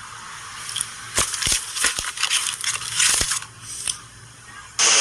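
A crunching, crackling noise made of many sharp clicks over a hiss, busiest in the middle. Near the end a much louder, different pitched sound cuts in suddenly.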